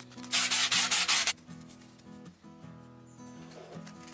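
Sandpaper rubbed quickly back and forth over the edge of a depron foam part: a short run of about seven rasping strokes in about a second, near the start.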